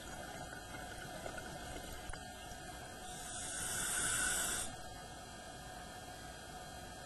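A scuba diver's breath through the regulator, heard underwater: one hissing, bubbling breath of under two seconds that swells about three seconds in and cuts off sharply, over a steady low hiss.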